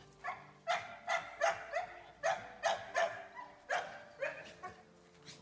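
A puppy yapping: about a dozen short, high barks in quick succession, roughly two a second.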